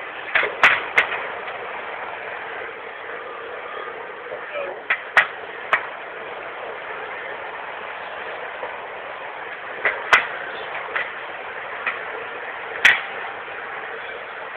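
Scattered sharp clicks of metal surgical instruments handled over a steel table, at irregular intervals against a steady background hiss.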